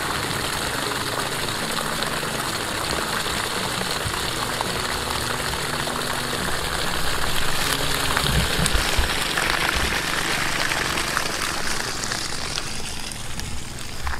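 Water gushing from the open end of a PVC pipe and splashing onto the grass and ground, a dense, steady rush. It grows fainter near the end.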